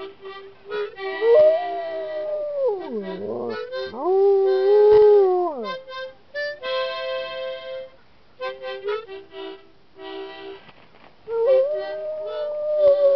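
Alaskan Malamute howling along to a harmonica: several long howls that rise, waver and fall in pitch, one dipping low in the middle, traded with short steady chords and note runs on the harmonica. The howling returns near the end over the harmonica.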